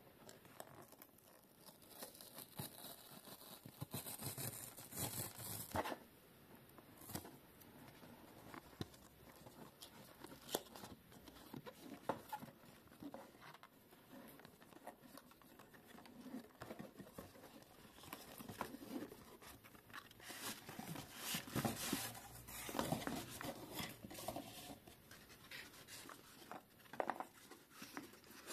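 Hands handling and opening a GoPro HERO12 Black's retail box: scraping, rustling and tearing as the seal is removed and the box is opened, in irregular bursts, with the busiest handling about four to six seconds in and again around twenty to twenty-five seconds in.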